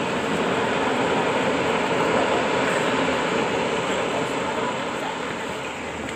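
Landslide: earth and rock pouring down a steep hillside, making a continuous rushing noise that swells slightly a couple of seconds in and eases toward the end.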